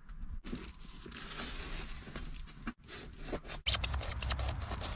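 Thermal insulation sheet being measured and cut by hand: a run of quick scratchy scrapes and rustles, busier and louder from about three-quarters of the way through.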